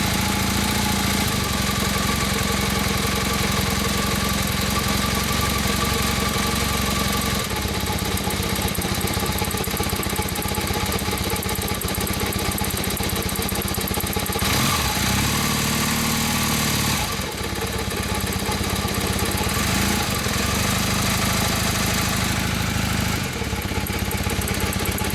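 Honda CM450C parallel-twin engine idling after a fairly cold start, carrying the odd noise from the cylinder head that the owner is trying to diagnose. Its note changes briefly about fifteen seconds in, then settles back to a steady idle.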